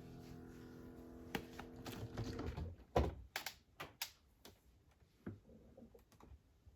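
A steady hum that stops just before a sharp knock about three seconds in, followed by a run of irregular light clicks and knocks, as of things being handled.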